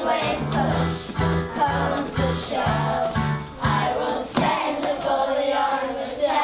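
A group of children singing a show tune together over a recorded backing track, with a steady bass pulse about twice a second that drops out for a while a little past the middle.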